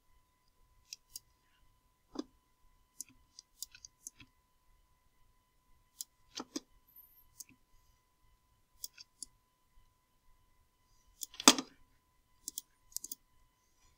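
Computer mouse clicking: scattered single sharp clicks every second or so, with one louder knock near the end.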